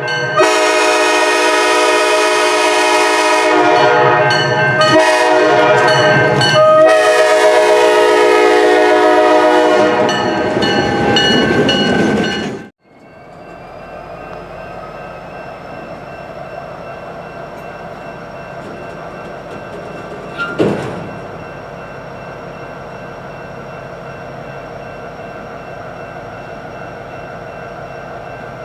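Diesel locomotive multi-chime air horn sounding several long blasts with short breaks, then cutting off abruptly. After that, an EMD 16-710 diesel prime mover of an SD70ACe running steadily, with a high whine that rises and then holds, and one short knock about twenty seconds in.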